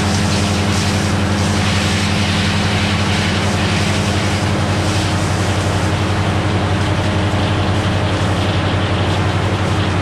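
Naturally aspirated Cummins six-cylinder diesel power unit running steadily, driving a Meadows No. 1 circular sawmill through its drive shaft.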